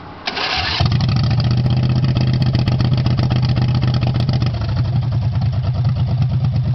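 Custom-built 25 hp racing lawnmower's engine starting: a brief burst of cranking, then it catches about a second in and runs steadily and loudly with a deep, rapid firing pulse.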